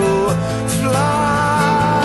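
Background song: a voice slides up about a second in and holds a long note over the instrumental backing.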